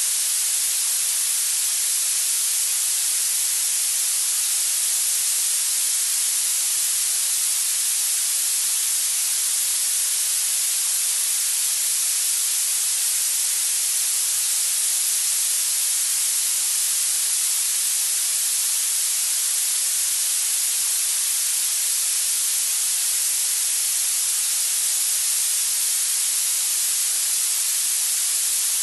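Steady, unchanging hiss of electronic noise, bright and high-pitched with little low end, played as a masking sound for tinnitus retraining therapy.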